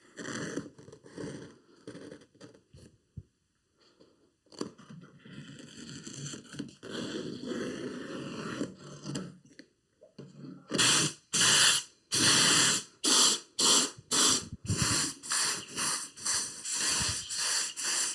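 Quiet scraping and rustling, then a run of short, loud hissing bursts about two a second in the second half: a spray gun spraying contact adhesive onto the headliner board and fabric.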